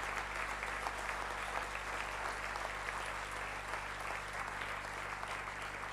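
Audience applauding: a steady wash of many hands clapping at an even level.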